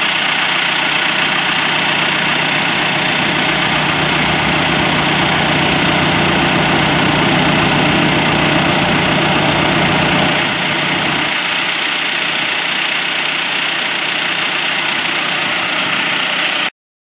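John Deere utility tractor's diesel engine idling steadily. Its low tone eases about eleven seconds in, and the sound cuts off abruptly just before the end.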